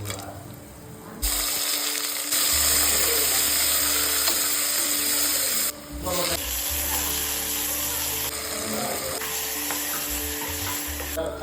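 Food frying in hot oil with a steady sizzle, heard in several short clips that change abruptly in loudness from one to the next, over a low steady hum.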